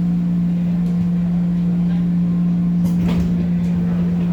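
Steady hum inside a JR 205 series electric train car, holding one unchanging pitch over a low rumble. Faint voices and a few light knocks come in about three seconds in.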